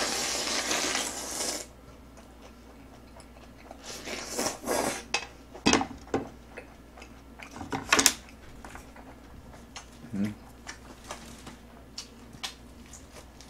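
Slurping the last of the jjapagetti noodles straight from the pan for the first couple of seconds. Then a spoon scrapes and knocks against the pan, with two sharp clinks about six and eight seconds in, and lighter ticks of utensils afterwards.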